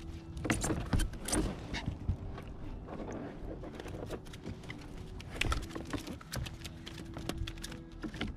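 Irregular sharp clicks and knocks of fishing tackle being handled on a plastic kayak, clustered about half a second in and again around five and a half seconds, over a faint steady low hum.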